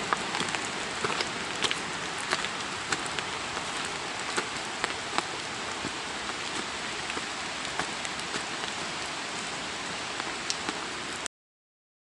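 Steady rain hiss with frequent sharp ticks of drops striking close by. The sound cuts off suddenly near the end.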